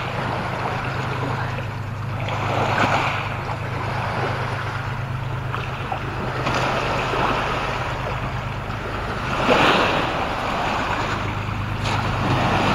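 Lake water washing against the pebble shore, with wind rumbling on the microphone. The wash swells up three times.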